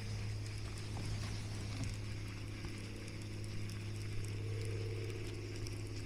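Light clicks and handling noise from a baitcasting reel and its line being worked by hand, over a steady low hum.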